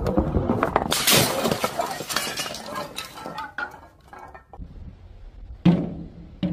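A large glass bottle shattering as a heavy ball rolls into it, the crash loudest about a second in, followed by shards clinking and scattering that fade out over the next couple of seconds. Two dull thuds near the end.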